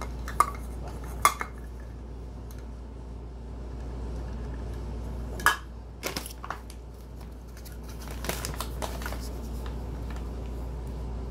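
Plastic measuring cups clacking together as a nested set is handled and pulled apart: a scattering of sharp clicks, a few single and two small clusters, over a steady low hum.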